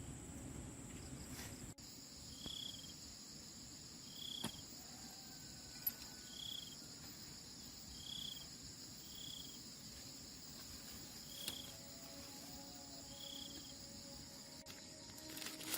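Insects, crickets among them, making a steady high buzz, with short high chirps repeating every second or two and a few faint clicks. A low background rumble stops suddenly about two seconds in.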